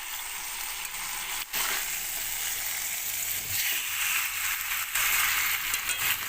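Food frying in hot oil in a cooking pot, a steady sizzle, with a couple of short clicks.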